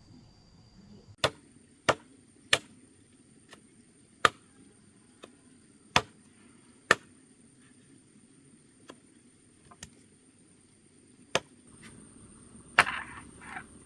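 Sharp chopping blows of a hand tool striking bamboo or wood, about nine loud strikes at irregular intervals from under a second to a few seconds apart, with some rustling near the end.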